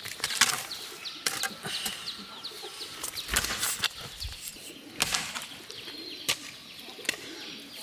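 Irregular slaps and rustles of live river fish thrashing while being handled out of a hook net, with small birds chirping.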